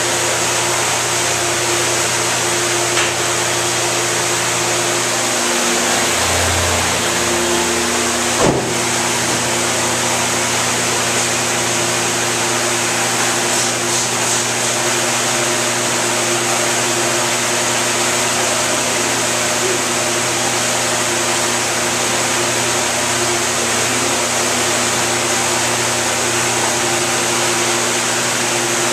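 Large wall-mounted direct-drive exhaust fan running steadily: a constant rush of air over a steady electric motor hum. A single short knock sounds about eight seconds in.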